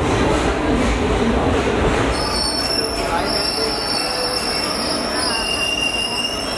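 Railway carriage wheels squealing on the rails in a station: several steady high-pitched squeals set in about two seconds in, over a low rumble.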